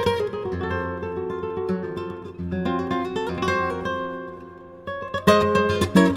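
Background music on acoustic guitar: plucked notes that fade about four seconds in, then louder strummed chords near the end.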